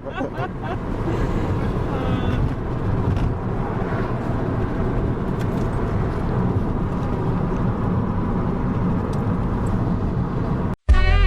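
Steady road and engine noise inside a moving car's cabin. It cuts out near the end and music starts.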